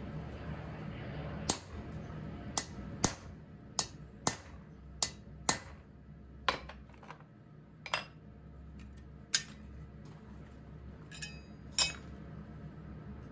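Blacksmith's hand hammer striking red-hot mild steel flat bar on an anvil: about a dozen single blows at an uneven pace, each with a short metallic ring. The last blow, near the end, is the loudest.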